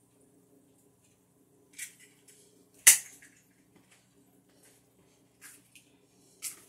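A few sharp clicks and taps, the loudest about three seconds in, over a faint steady low hum.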